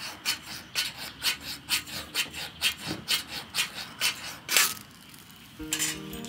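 Ferro rod fire starter struck over and over with a metal striker, quick rasping scrapes about three to four a second, the last and loudest stroke throwing the sparks that light a cotton ball tinder. Plucked guitar music comes in near the end.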